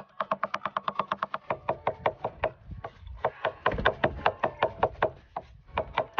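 Chinese cleaver mincing garlic on a wooden chopping board: rapid, even chopping, about eight strokes a second, each with a short ringing knock of blade on wood.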